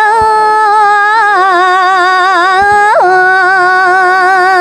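A woman singing a Balinese tembang, a verse of Pupuh Sinom, unaccompanied. She holds long wavering notes with ornaments and makes a quick upward flick about three seconds in.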